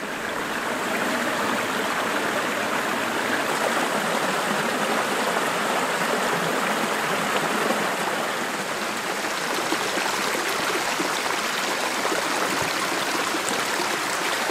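Small rocky creek rushing over stones and a little cascade: a steady rush of water that swells up over the first second and then holds.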